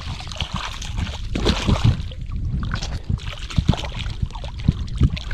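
Shallow river water splashing and sloshing in irregular bursts as a large giant snakehead (toman) is swished about in it to wash it off.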